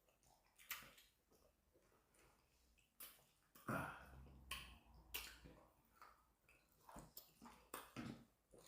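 Faint eating sounds: scattered short clicks and soft chewing noises, about eight in all, from people eating from plates.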